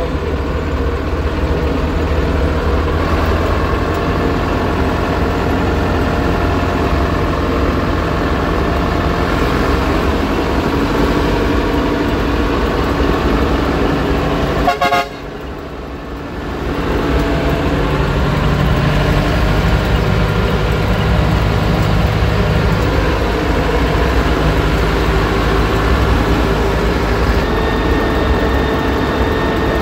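IMT 577 DV tractor's diesel engine running steadily while driving, heard from inside the cab. About halfway through there is a short rattle and the engine note drops briefly, then picks back up.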